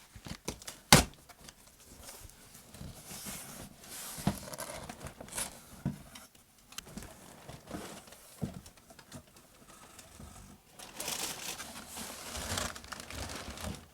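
Packaging being handled and opened: crinkling and rustling with scattered clicks, and a sharp knock about a second in.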